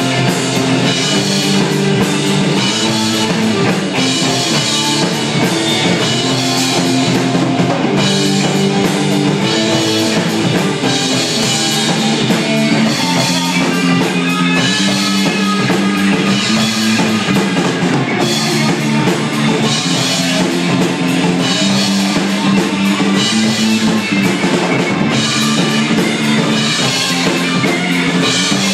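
Rock music with a drum kit and guitar over a moving low line, at a steady loud level.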